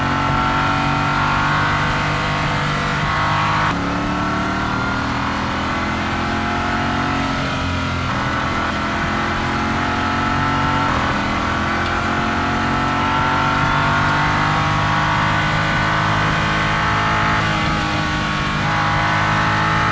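Ford Mustang Dark Horse SC's supercharged V8 running under way. Its pitch drifts slowly and shifts abruptly a few times, at about 4, 8, 11 and 17 seconds in.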